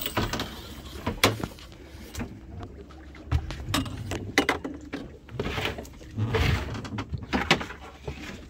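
Irregular knocks and clunks on an aluminium dinghy's hull as a crab pot rope is hauled in by hand, over a low steady rumble.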